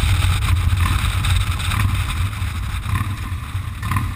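Motorcycle engine and wind noise on the move, a loud, steady low rumble.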